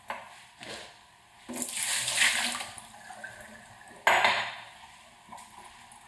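Water poured out of a glass measuring cup into a stainless steel kitchen sink for about a second, then the glass cup set down on the countertop with a sharp clink.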